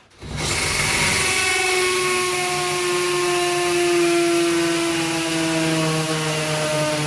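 Cordless drill starting up about a quarter second in and running steadily as it bores a hole for a wall plug, its whine sinking slowly in pitch as the motor takes the load.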